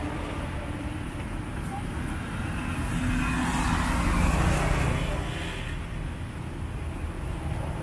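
Road traffic with a steady low rumble; a passing vehicle swells louder and fades about three to five seconds in.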